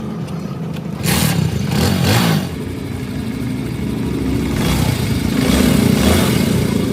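Motorcycle engine running, revved up about a second in, dropping back, then rising in speed again toward the end.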